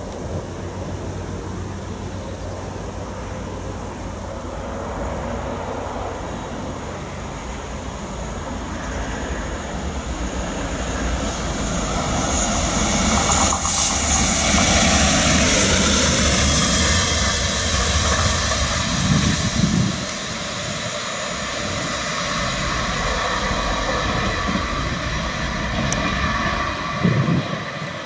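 Class 66 diesel-electric locomotive with its EMD two-stroke V12 engine approaching and passing under power, growing louder to its loudest about 13 to 16 seconds in, with a falling whine as it goes by. The freight wagons then roll past behind it, with a few sharp clacks from the wheels near the end.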